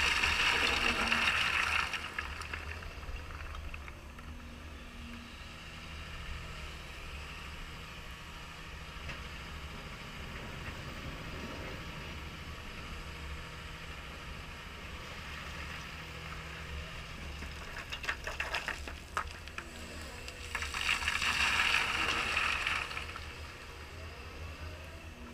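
CAT 320E excavator's diesel engine running under load, with a bucketload of stone rattling and pouring onto a stockpile near the start and another near the end. A few sharp stone knocks come in between.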